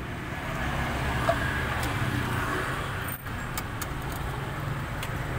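KTM RC 200's single-cylinder engine idling steadily through an aftermarket stainless-steel slip-on exhaust, SC Project style.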